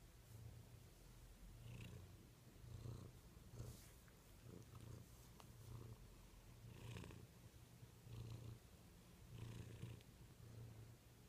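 A black-and-white domestic cat purring faintly while being scratched under the chin and neck, the low purr swelling and easing in a repeating rhythm, with faint rustles of fingers in its fur.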